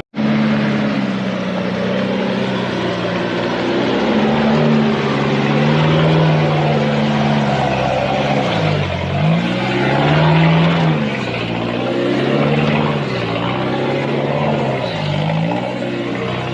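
Off-road vehicle engine running under load, its pitch dropping and climbing back several times in the second half as the throttle is worked, over a steady rushing noise.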